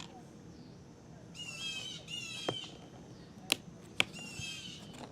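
Aftermarket window felt strip being pried off a truck door: a few short squeaks and sharp snaps as its retaining clips pop loose.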